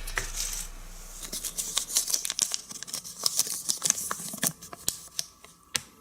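Irregular crackling and clicking of a Kinder Surprise chocolate egg being handled and opened by hand, with background music fading out in the first second.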